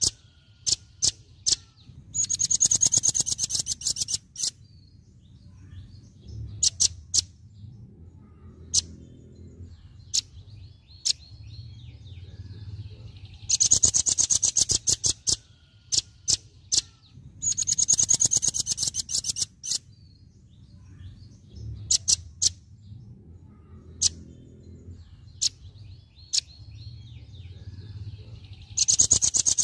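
Velvet-fronted nuthatch singing its rapid-fire 'tembakan' song: four bursts of very fast, high repeated notes, each about two seconds long, with single sharp chip notes scattered between them.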